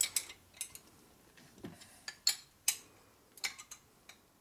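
A wrench clicking as the cylinder head bolts of a Harley-Davidson shovelhead engine are tightened: about eight sharp metallic clicks, irregularly spaced half a second to a second apart.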